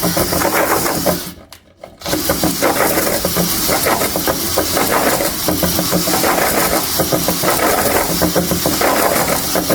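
Power drill spinning a flex hone inside a rusty air-cooled VW cylinder, its abrasive balls scouring the cylinder wall to cut off rust and lay a cross-hatch. The drill stops briefly about a second in, then runs steadily again.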